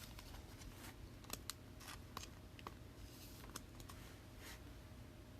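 Faint, irregular clicks and light ticks of trading cards being handled and sorted, over a low steady room hum.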